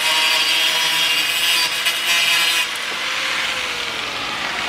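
Handheld power tool running and cutting inside a car's rear wheel arch, trimming it so the tyre no longer rubs. A steady high-pitched whir that gets quieter about two and a half seconds in.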